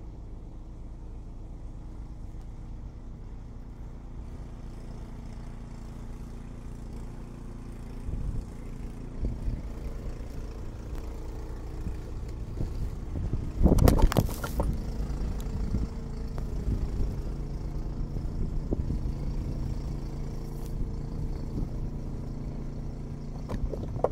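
Ariens Deluxe 30 two-stage snowblower running steadily under load while throwing a plume of snow, with a brief loud rush of noise about halfway through.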